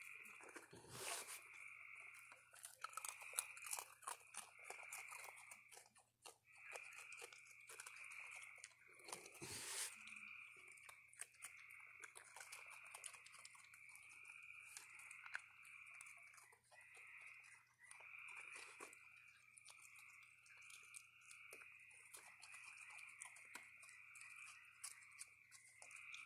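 Raccoons faintly crunching and chewing dry snack food such as Cheerios and wafer cookies: an irregular run of small crunches and clicks. A steady high trill of a night chorus runs behind it.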